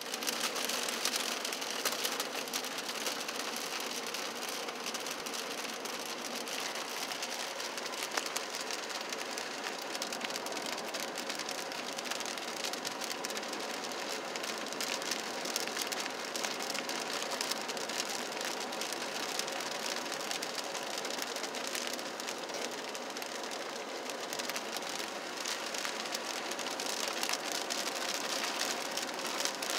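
Rain pattering steadily on a car's roof and windshield, heard from inside the moving car, with a faint steady hum underneath.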